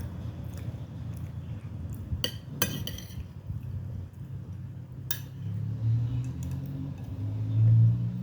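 Spoon or cutlery clinking against a dish, a quick cluster of clinks about two to three seconds in and one more about five seconds in, over low chewing sounds.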